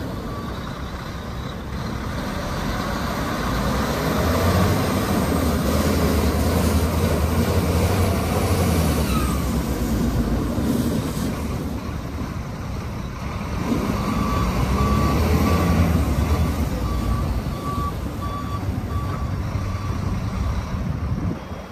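Volvo A40D articulated dump truck's diesel engine running and pulling as the truck moves over gravel, swelling louder twice. In the second half its reversing alarm beeps steadily, about one and a half beeps a second, as the truck backs up.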